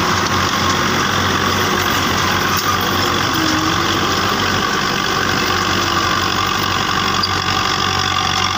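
Fiat 640 tractor's diesel engine running steadily under load as it pulls a cultivator through dry field soil.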